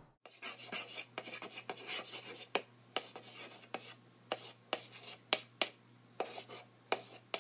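Chalk writing on a blackboard: a run of short scratching strokes with sharp taps where the chalk meets the board, over a faint low hum.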